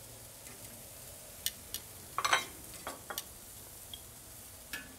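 Food sizzling steadily on a grill, with a few sharp clicks and clatters of utensils and dishes. The loudest clatter comes a little over two seconds in.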